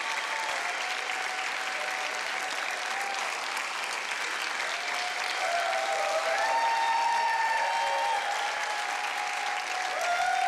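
Studio audience applauding steadily, with cheering voices rising over the clapping in the second half.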